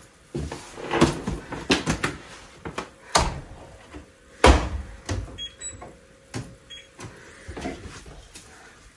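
Front-loading washing machine door unlatched with a click and swung open, followed by a run of knocks and clunks as laundry is handled at the drum, with one heavier thump about four and a half seconds in.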